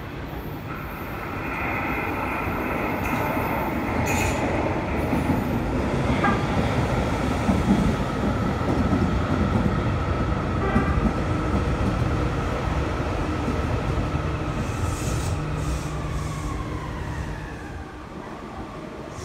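Yokohama Municipal Subway Green Line linear-motor train pulling into the station: wheels rumbling on the rails, with a steady whine from the drive. The whine falls in pitch as the train brakes, about three-quarters of the way through, and the sound eases near the end.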